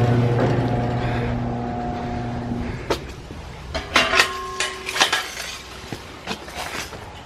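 A steady motor hum fades away over the first few seconds, then a handful of sharp clicks and knocks, one with a brief ringing tone.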